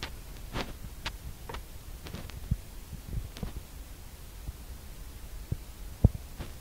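Low steady background hum with scattered soft clicks and taps, the sharpest a single knock about six seconds in.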